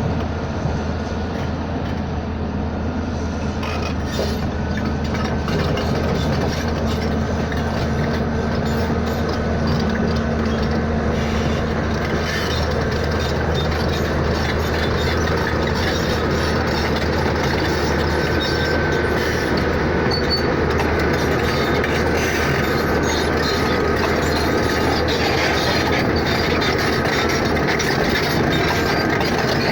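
Steady rumble of a moving vehicle, a low drone with road or running noise over it.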